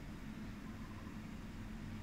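Steady low hum with background hiss.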